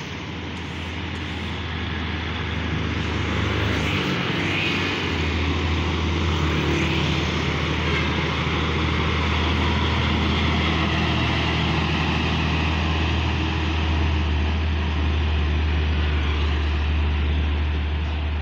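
Diesel engine of a container-hauling tractor-unit truck driving past close by on an uphill road, a loud, steady low drone that dips briefly about four seconds in and then picks up again.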